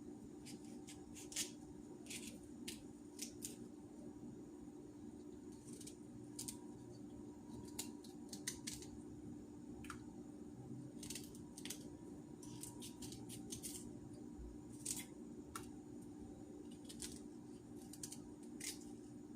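Knife cutting food on a cutting board: irregular crisp cuts, some in quick runs of two or three, over a steady low hum.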